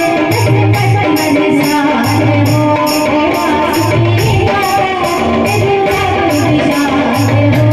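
A woman singing a devotional folk song into a microphone, amplified, over a steady jingling percussion beat of about two to three strokes a second with a low drum underneath.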